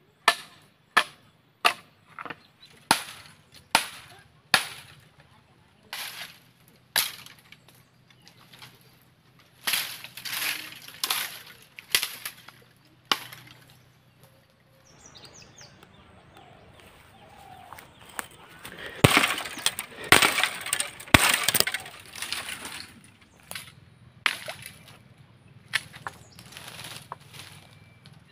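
Machete chopping bamboo: sharp single chops about a second apart. About two-thirds of the way through, a dense burst of bamboo cracking and snapping with rustling leaves, then a few more chops near the end.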